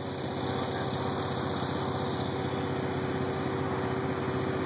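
An engine idling steadily with an even, rapid pulse.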